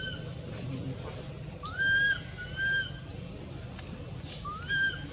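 Baby macaque crying: three short, high, whistle-like calls, each sliding up and then held, the loudest about two seconds in and the last near the end. A steady low hum runs underneath.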